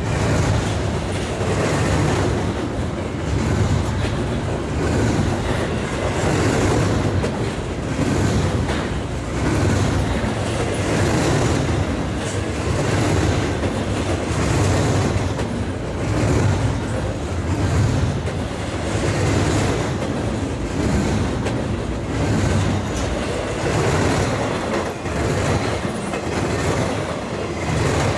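Norfolk Southern freight train rolling past, its steel wheels clacking over the rail joints in a steady rhythm that swells about every second and a half to two seconds as each car goes by.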